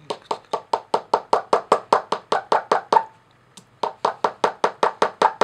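A small pick rapidly tapping and chipping at the plaster block of a toy dinosaur excavation kit, about five even knocks a second. It pauses briefly about three seconds in, then carries on.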